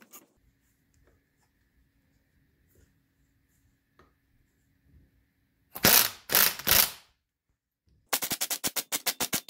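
Impact wrench turning the nut on a threaded shaft to draw a large suspension bushing into its bracket: after a few quiet seconds it fires in three short bursts, then hammers in a fast, even run of blows near the end.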